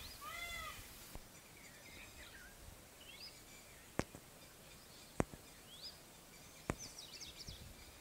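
Indian peafowl (peacock) calling in a quick series of short calls, each rising then falling in pitch, the series ending about a second in. Faint small-bird chirps and a few sharp clicks follow.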